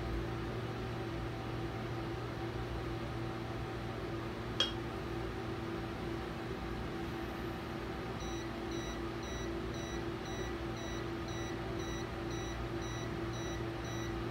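Endovenous laser generator beeping: about eight seconds in, a rapid run of evenly spaced high beeps starts, the tone the unit gives while the laser is firing, over a steady equipment hum. One sharp click comes about halfway through.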